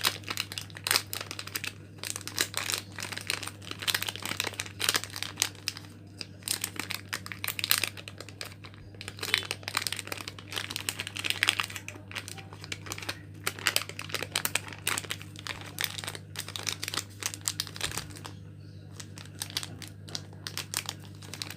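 Coffee sachet wrappers crinkling and crackling as they are folded by hand into small pieces, with a short pause near the end. A steady low hum runs underneath.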